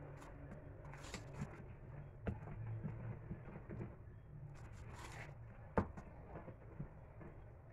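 Wooden spoon and hand working thick fruit-cake batter in a stainless steel bowl: soft scraping and squelching with scattered sharp knocks against the bowl, the loudest a little past two seconds and near six seconds, over a low steady hum.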